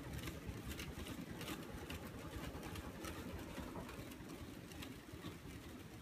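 Fanimation Louvre ceiling fan with four palm blades running at speed: a low, uneven whoosh of air from the turning blades, with a few faint ticks.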